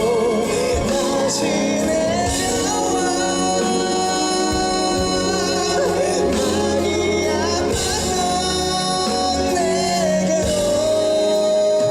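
Live pop ballad performance: a singer's voice wavers with vibrato over a full band, then settles into a long held high note near the end.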